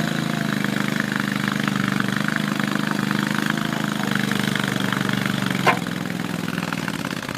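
Vermeer S450TX mini skid steer's 27 hp Kohler EFI gasoline engine running steadily. A single sharp knock is heard a little over five seconds in, and the engine is slightly quieter after it.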